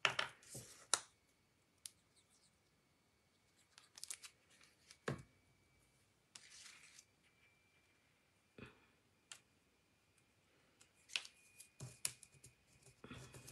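Faint, scattered paper-crafting handling sounds: light taps, clicks and short rustles as small paper flower cut-outs and cardstock are picked up and set down on a cutting mat. A brief rustling hiss comes about six and a half seconds in.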